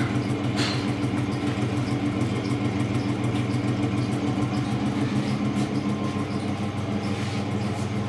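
An old ceiling fan's electric motor running with a steady low hum, made of several even tones. The noise is put down by its owner to the fan's great age.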